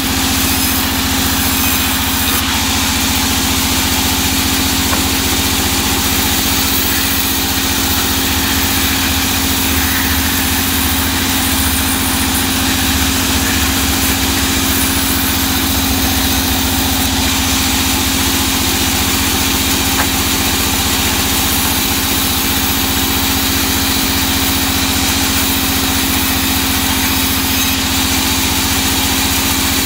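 Band saw running steadily while its blade rips lengthwise through a teak log.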